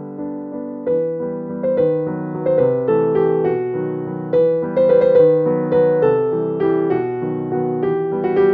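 Background music: a piano playing a gentle melody over chords, notes struck several times a second.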